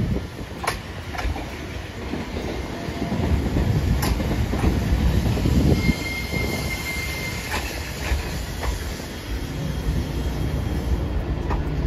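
Hiroden 5100-series Green Mover Max articulated low-floor tram running past close by: a steady rumble, with its wheels clacking over the rail joints several times. A brief high-pitched whine comes about six and a half seconds in.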